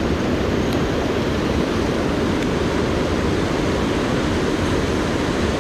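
Steady rush of white water from a small cascade pouring over boulders into a pool in a mountain stream.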